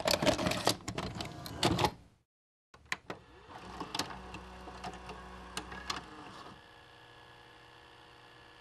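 A videocassette machine's mechanism clattering and clicking, then after a short break a few sharp clicks and a whir as the tape loads. It settles into a steady tape hiss with a faint hum.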